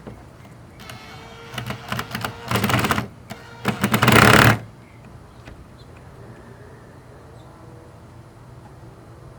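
Several bursts of rapid clicking and rattling over about four seconds, the last and loudest ending sharply about four and a half seconds in: hands working plastic parts and wiring inside a car door.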